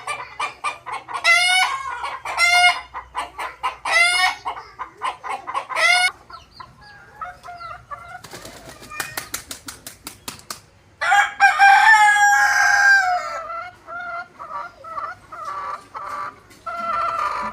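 Chickens clucking in quick runs of short calls, then a burst of wing flapping. After that a rooster gives one long crow, and the clucking comes back near the end.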